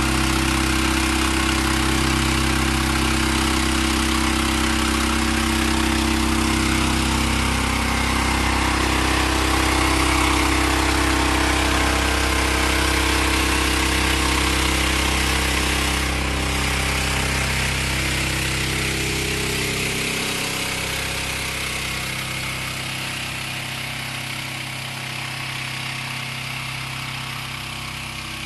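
Mini fire truck's engine running steadily under load, driving its fire pump while the roof-mounted water monitor sprays a jet. The deep low engine note fades about two-thirds of the way through.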